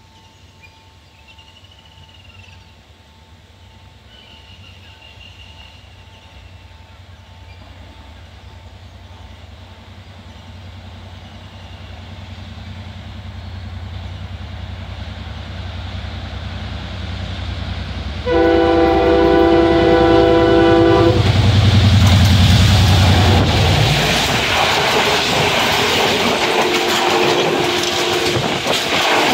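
Express passenger train hauled by a diesel locomotive approaching, its low rumble growing steadily louder. About eighteen seconds in, the horn sounds one long blast of nearly three seconds. The locomotive and coaches then pass close by at speed with loud wheel clatter.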